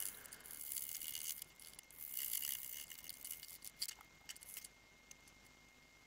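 A small blade scraping hardened 3D-pen plastic off a flat plate: two scratchy scraping strokes, then a few light clicks.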